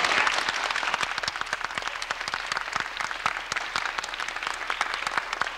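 Audience applauding: many hands clapping in a dense, irregular patter, loudest right at the start and then settling to a steady level.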